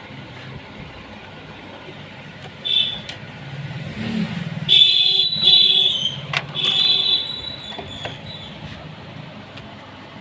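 Road traffic running steadily, with a vehicle horn sounding briefly once and then honking three times in quick succession about halfway through.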